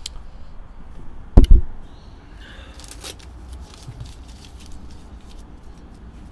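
Two loud, dull thumps close together about a second and a half in, from a handheld desk microphone being handled and put down, followed by a few faint clicks and a soft rustle.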